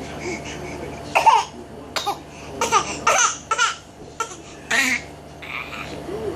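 A baby laughing in a string of short, high bursts whose pitch slides up and down.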